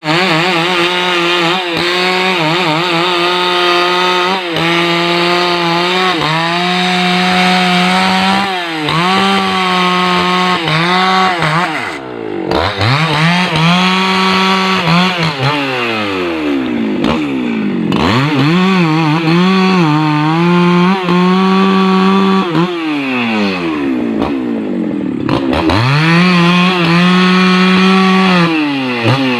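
Husqvarna 288 XP two-stroke chainsaw running at high revs, cutting rubberwood logs. Its engine note falls away several times as the throttle is eased and climbs back as it is revved again.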